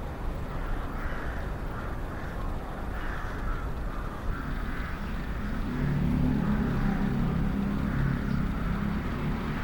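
Crows cawing on and off over a steady street background, with a vehicle's low engine rumble rising from about halfway through.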